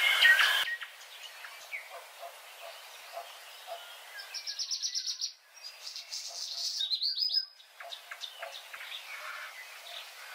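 Birds chirping and calling, with a quick trill of rapidly repeated high notes about four and a half seconds in and another near seven seconds.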